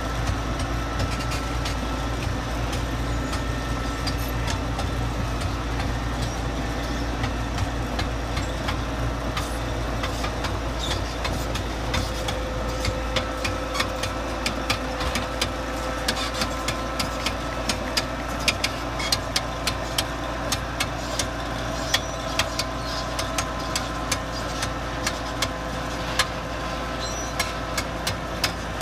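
Diesel engine of a tracked drainage tile plow running steadily as it pulls the plow through a field laying corrugated drainage tubing, with a low rumble and a steady whine. Irregular sharp clicks join in from about eight seconds in.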